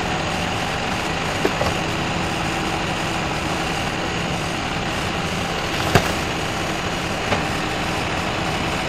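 A truck engine running steadily at idle, with a few short sharp knocks about one and a half, six and seven and a half seconds in.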